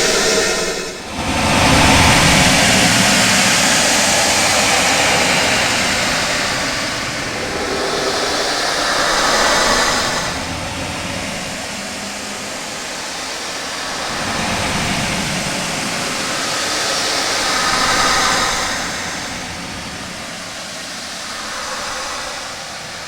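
Very loud 'outer space' ambience sound effect: a dense rushing noise that swells and fades in slow waves several seconds apart, with a brief dip about a second in.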